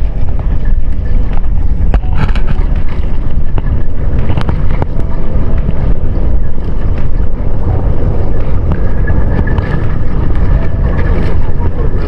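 Motorboat running under way, its engine rumbling steadily under heavy wind buffeting on the microphone, with scattered knocks.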